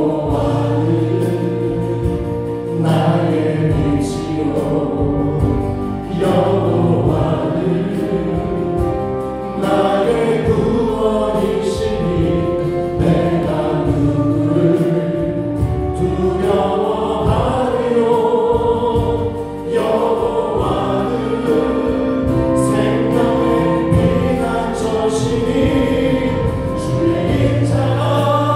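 Group of voices singing a gospel worship song together, backed by a live band: Yamaha Montage 8 keyboard, a second keyboard, bass guitar and drums keeping a steady beat.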